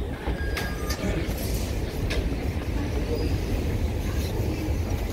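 Steady low rumble of an underground metro station concourse, with a few short sharp clicks around the tripod turnstiles.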